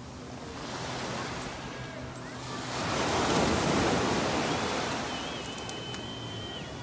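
Sea surf on a sandy beach: a steady wash of waves, with one wave swelling up about three seconds in and washing out again.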